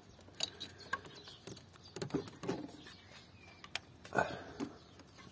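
Scattered light plastic clicks and scraping as the ignition coil's electrical connector is plugged in and the coil is pressed into place on the engine, with one louder knock about four seconds in.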